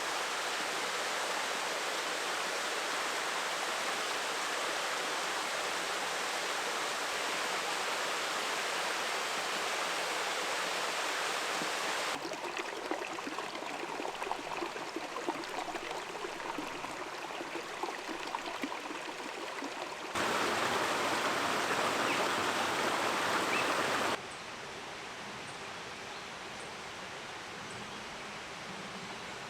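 Steady rushing of flowing water, heard in several cuts. The sound changes abruptly about 12 seconds in, becomes louder about 20 seconds in, and drops quieter about 24 seconds in.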